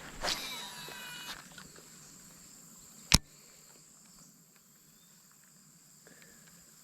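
A baitcasting reel on a cast, its spool spinning out line with a brief whine that slides in pitch for about a second at the start. About three seconds in comes a single sharp click. A steady high insect drone runs underneath.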